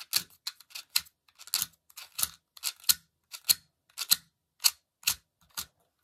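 Plastic 12-sided fidget cube clicked repeatedly by hand: about fifteen sharp clicks, unevenly spaced at two or three a second.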